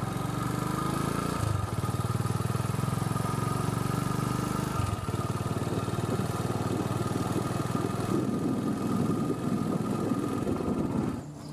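Small motorcycle engine running as the bike rolls slowly along, its note shifting about a second and a half in and again about five seconds in, growing rougher later on, and dropping away just before the end.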